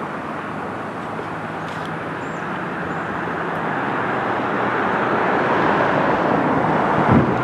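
Road traffic passing, a steady rush of tyres and engines that grows louder as a vehicle approaches and passes close by near the end.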